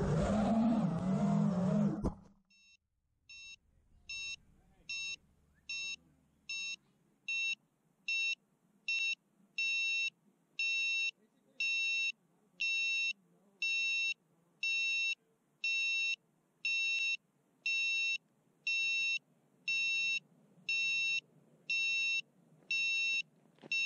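FPV miniquad's brushless motors and propellers whining at speed with wind rush, cutting off abruptly about two seconds in as the quad crashes. Then its lost-model beeper sounds a steady series of high beeps, about two a second at first and then about one a second, each a little longer.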